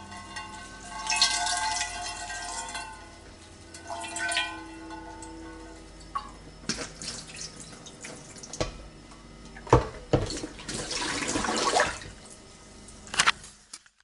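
Water hitting a frying pan, hissing in several bursts and spitting with sharp pops, loudest about ten seconds in.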